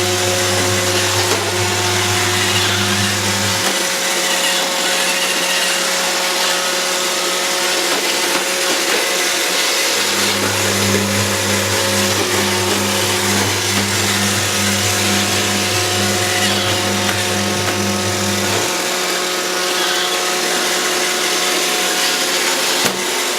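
iRobot Roomba 780 robot vacuum running: the steady whir of its motors and brushes, with a deeper hum that drops out a few seconds in and comes back for a stretch in the middle.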